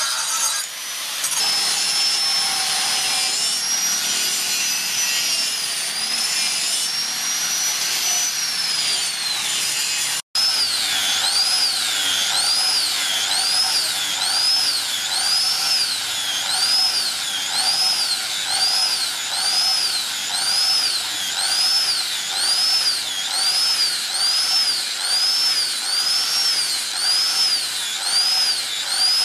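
Angle grinder with a sanding disc grinding a spring-steel blade, its high whine steady at first, then rising and falling about once a second. A brief break about ten seconds in.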